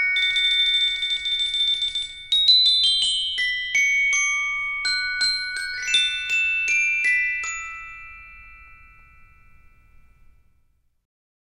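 Glockenspiel playing a short moderato passage: a rapid roll on one high note, then a string of single struck notes ringing on, a quick upward glissando, and the last notes ringing and fading away.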